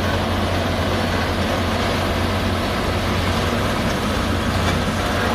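A heavy diesel engine of construction machinery runs steadily with a deep, even hum and no distinct blows.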